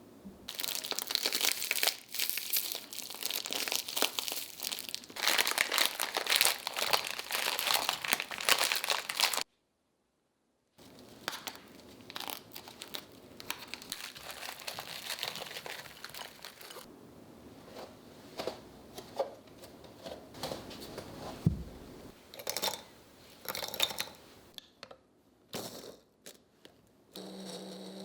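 Plastic biscuit packaging crinkling and tearing as it is handled, dense for about nine seconds. After a cut, sparser crinkles and clicks follow.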